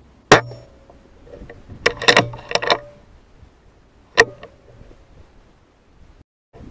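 Weihrauch HW100 PCP air rifle fired, a sharp crack, then a run of metallic clacks a couple of seconds later as the side lever is cycled to load the next pellet, and a second shot about four seconds in.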